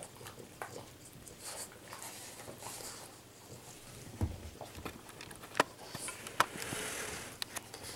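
A French bulldog moving about with a dog cake and hopping down from a low table onto carpet, with a soft thump about four seconds in. After it come a few sharp clicks and light pattering and rustling.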